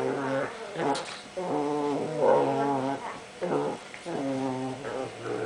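Two small spaniels growling and grumbling at each other while play-fighting: a string of drawn-out pitched growls, each about a second long with short breaks between.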